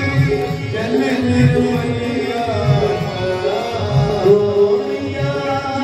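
Devotional Ganga aarti hymn sung to a steady drum beat.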